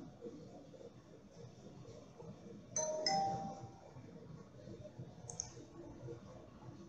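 A short two-note electronic chime about three seconds in, the second note higher than the first, ringing out for about a second. A single computer mouse click follows a couple of seconds later.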